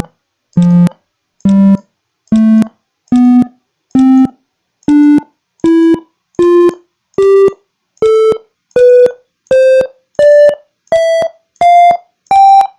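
Electronic beep tones from the Micro:bit MakeCode play-tone block, playing a C major scale upward note by note across its range from low C to high C. Each note is short and separate, a little more than one a second, climbing steadily in pitch.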